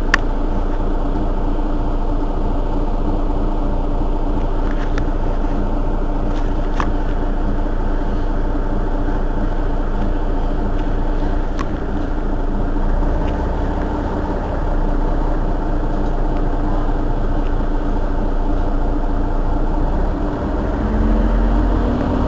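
Mercedes-Benz Citaro city bus's rear-mounted diesel engine idling steadily, heard from just behind the bus, with a few faint clicks. The low rumble swells briefly near the end.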